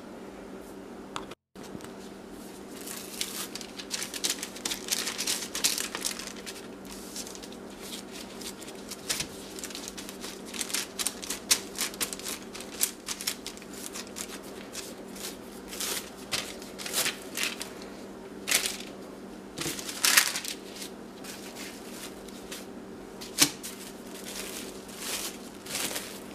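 Handling noise: quick, irregular clicks and crackles over a steady low hum.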